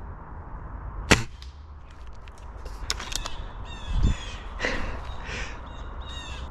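Crows cawing, a run of short calls in the second half. About a second in there is a single sharp crack.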